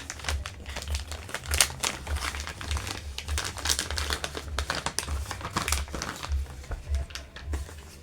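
Plastic packaging crinkling and rustling in irregular bursts as a pack of hand cream tubes is handled.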